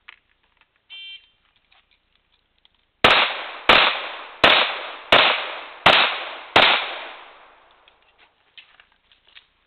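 Electronic shot-timer start beep, then six pistol shots about two-thirds of a second apart, each trailing off in an echo.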